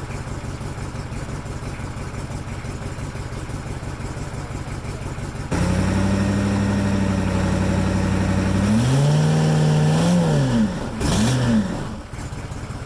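1983 Chevy Suburban's 6.2-litre diesel V8 running: a rough steady idle, then revved up about five seconds in and held steady, blipped up and down a few times, and let drop back to idle near the end.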